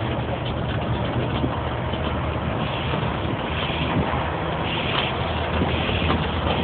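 Steady low engine drone with road and wind noise from inside a moving bus on a highway.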